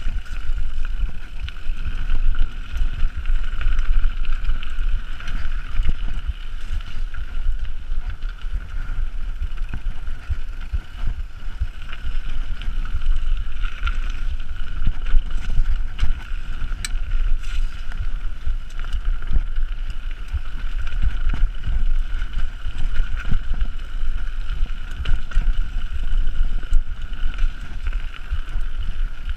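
Mountain bike descending a dirt trail, heard from a camera on the rider: a constant rumble of tyres and wind buffeting the microphone, with knocks and rattles over bumps and a steady buzz underneath.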